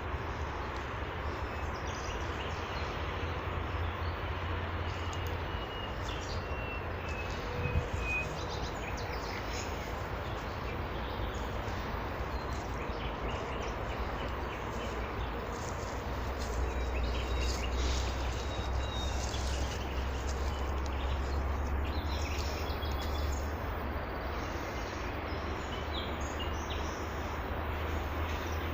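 Small birds chirping now and then, with a thin whistle that slides slightly downward a few seconds in, over a steady background rumble and hiss.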